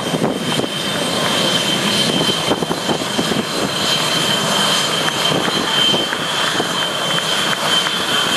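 Jet engines of Blue Angels F/A-18 Hornets running as the jets roll along the runway: a loud, steady rush with a high whine held over it.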